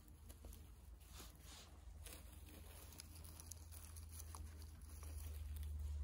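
Faint rustling and light crackling of forest leaf litter, with scattered small snaps, as someone moves over the forest floor, over a steady low rumble.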